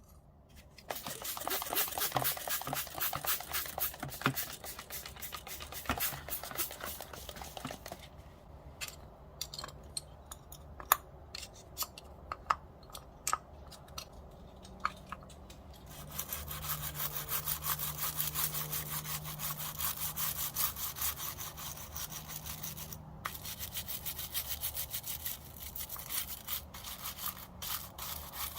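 A small detailing brush scrubbing disassembled pocket-knife parts in quick back-and-forth strokes. About eight seconds in the scrubbing stops for a while and only scattered light clicks and taps are heard. Steady scrubbing resumes near the middle and carries on.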